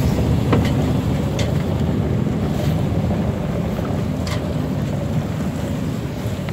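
Wind buffeting a phone's microphone on the deck of a sailboat under sail, a steady fluttering rumble, with water washing along the hull beneath it. A few faint clicks sound through it.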